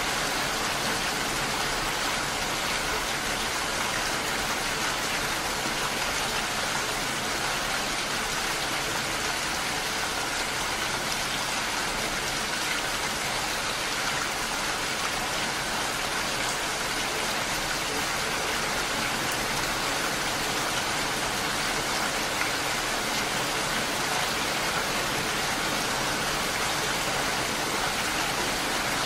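Steady rain falling on a pool of water and wet sand, an even hiss that does not change.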